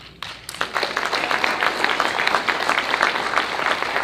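Audience applauding: many hands clapping, starting a moment in and keeping up steadily.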